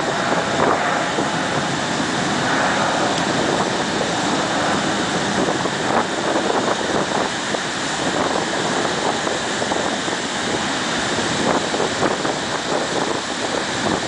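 Steady rush of ocean surf mixed with wind buffeting the microphone.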